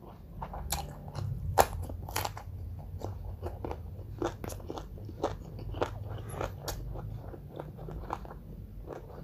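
Close-up sounds of crunchy food being bitten and chewed: irregular crisp crunches and mouth clicks, a few sharper bites in the first couple of seconds, over a low steady hum.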